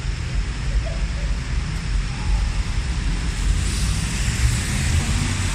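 Rainy city street ambience: a steady low rumble of traffic and wind buffeting the microphone under a wash of wet noise, with a hiss building about three and a half seconds in.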